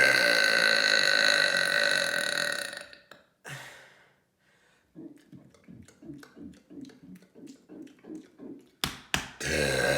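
A person burping: one long, loud, drawn-out belch lasting about three seconds, then a short one. After a pause come soft rhythmic taps at about three a second, two sharp clicks, and another long belch starting near the end.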